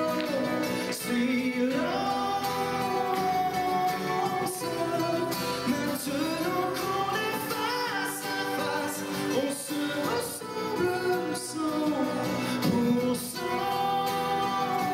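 Live song: a voice sings long held notes that slide from pitch to pitch over acoustic guitar.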